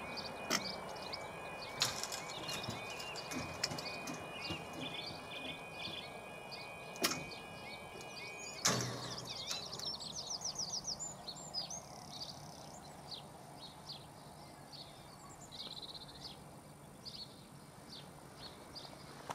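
British level crossing yodel alarm warbling in a fast repeating pattern while the barriers lower, with a few sharp clicks. It cuts off with a knock about nine seconds in, once the barriers are fully down, leaving birds chirping.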